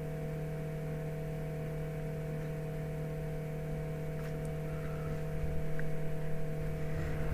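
Steady electrical hum made of a few constant low tones, with a faint low rumbling of handling noise in the last couple of seconds.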